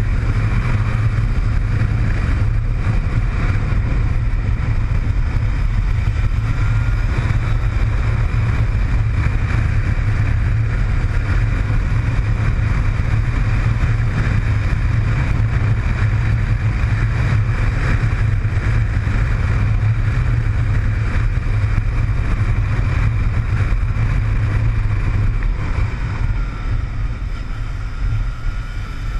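Yamaha motorcycle engine running steadily under way, with wind rushing over the microphone. The engine note eases off a little near the end as the bike goes into a curve.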